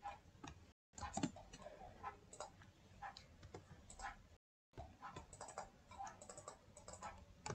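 Faint, irregular clicking of a computer keyboard and mouse while a 3D model is worked on in SketchUp. The sound drops to dead silence twice for a moment.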